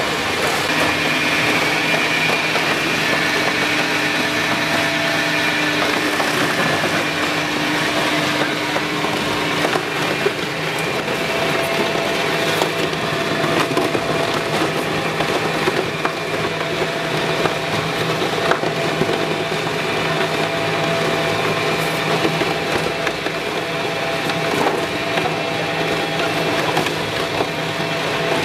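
EPS hot-melting recycling machine running, its twin-shaft crusher shredding expanded polystyrene foam: a steady motor hum under continual crackling and snapping of the foam being broken up.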